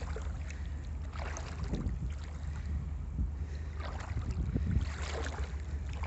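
Wind buffeting a phone microphone as a steady low rumble, with small waves lapping softly at the shore.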